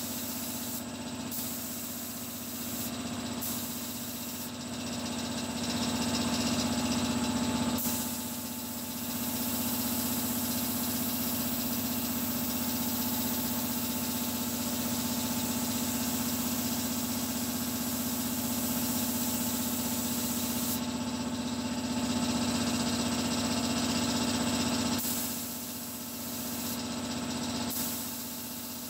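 Gravity-feed spray gun hissing as acrylic primer is sprayed onto a car door: several short bursts, then one long pass of about thirteen seconds, then short bursts again near the end. A steady mechanical hum runs underneath.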